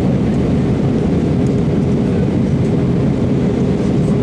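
Steady cabin noise of an Airbus A320 in flight on approach, heard inside the cabin: a low rush of engine and airflow noise with a steady hum.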